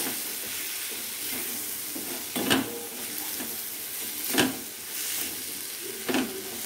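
Paneer and vegetable stuffing sizzling in a steel kadhai as it is stirred with a spatula, a steady frying hiss. Three sharp knocks of the spatula against the pan come about two seconds apart.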